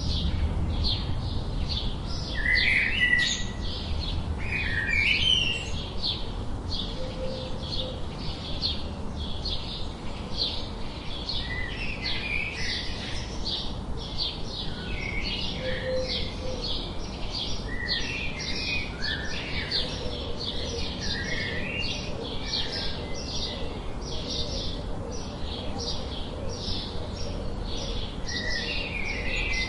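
Birds chirping: a dense chorus of quick, high chirps repeating steadily, with lower calls from other birds breaking in here and there.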